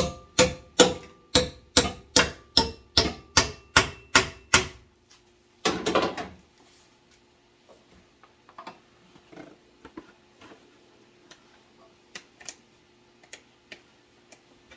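A rapid run of about fourteen hammer blows on steel, roughly three a second, each with a short metallic ring, stopping about five seconds in. A short scraping rasp follows, then only faint light taps.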